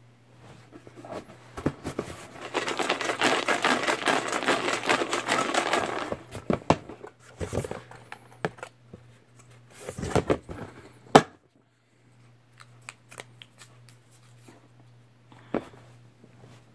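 Slips of paper being stirred around in a plastic tub for about three seconds, then scattered rustles and light taps, with one sharper tap near the middle.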